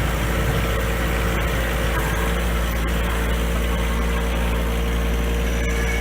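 John Deere 1023E compact tractor's three-cylinder diesel engine running steadily, with a few faint knocks.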